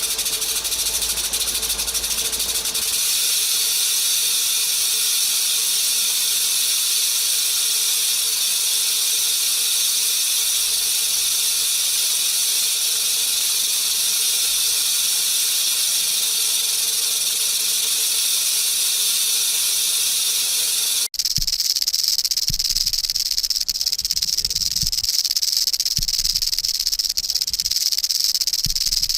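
Rattlesnake shaking its tail rattle in a continuous high buzz, its warning to a threat. About three-quarters of the way through it cuts abruptly to another take of the rattle, higher in pitch.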